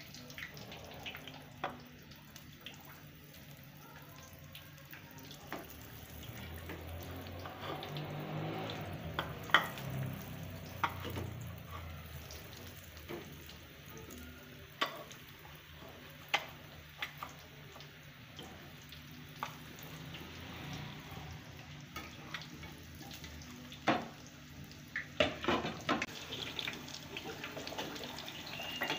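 Breaded chicken-and-potato kebabs frying in hot oil in a pan: a steady sizzle with scattered pops and crackles. Near the end, metal tongs click against the pan and kebabs as they are turned.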